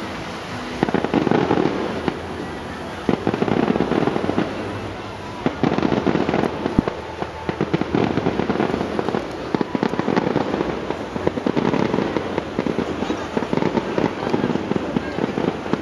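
Fireworks display going off in a dense barrage of bangs and crackles, picking up about a second in and continuing without a break.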